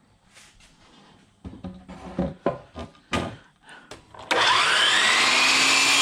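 A few knocks of wood being handled, then about four seconds in an electric power saw's motor switches on suddenly, its whine rising in pitch as it spins up, and runs steadily and loudly.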